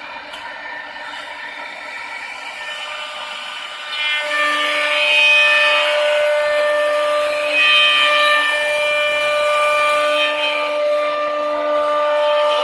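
CNC wood router cutting a wooden chair back: the spindle keeps up a steady whine made of several tones over the noise of the cutter in the wood. The cut grows louder about four seconds in.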